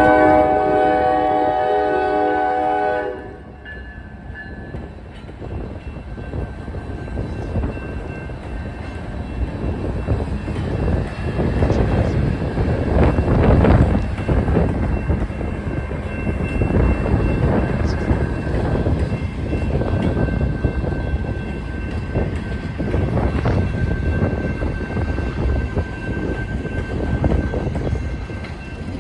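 Locomotive multi-chime air horn sounding a chord that cuts off about three seconds in, followed by the steady rumble and wheel clatter of a freight train rolling past.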